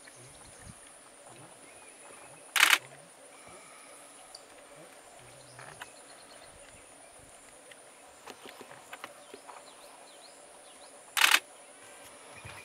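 Two camera shutter clicks, about two and a half seconds in and again near the end, each short and much louder than the surroundings, over a steady high-pitched insect drone.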